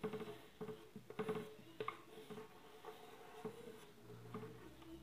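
Chalk scratching and tapping faintly on a blackboard as letters are written, in short, irregular strokes.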